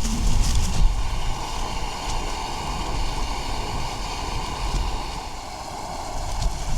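MSR Micro Rocket canister stove burning steadily at full flame, a continuous hiss, with low wind rumble underneath and a few clicks right at the start.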